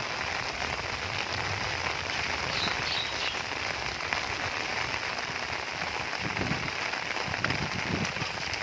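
Heavy rain falling steadily, an even hiss without a break. A few faint short high chirps sound about three seconds in.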